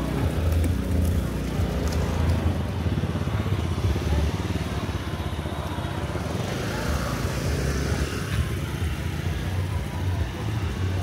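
Motorbike engines running close by in street traffic, with people's voices faintly underneath.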